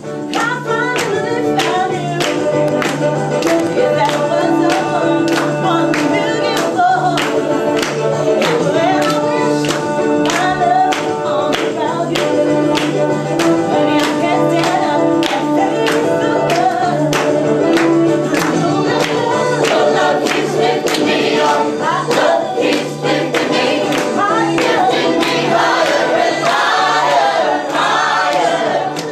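A group of men and women singing together over upbeat music, with steady clapping on the beat.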